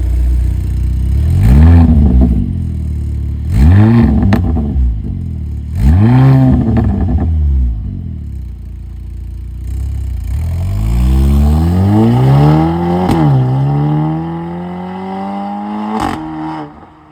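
Mercedes-AMG SL43's turbocharged four-cylinder engine through an aftermarket valvetronic catback exhaust with a catless downpipe: idling, then revved three times in quick blips that rise and fall. It then pulls for a longer stretch with the pitch climbing, drops sharply with a crack at a gear change, and climbs again before cutting off suddenly near the end.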